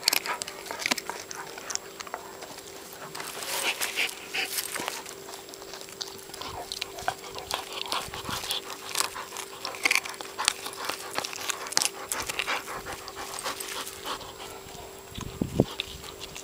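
Alaskan malamute puppy gnawing a raw meaty bone: irregular crunches and cracks of teeth on bone.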